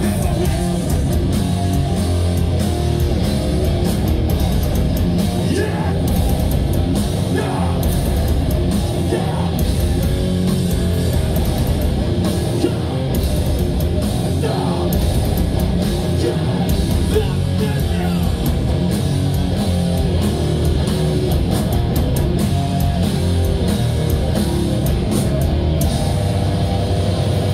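Live hardcore band playing loud: electric guitars, bass and drums, with a vocalist shouting into the microphone over them.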